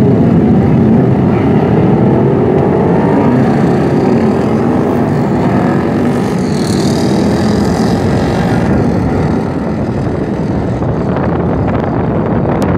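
Many motorcycle engines running together, several revving up with rising pitch in the first few seconds, along with a higher whine a little past the middle.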